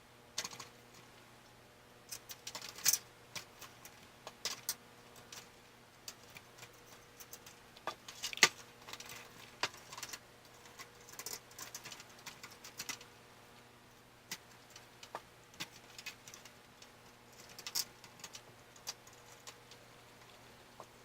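Hands assembling a desktop PC: irregular clicks, taps and short light rattles of parts and screws being handled in the case, over a faint steady hum.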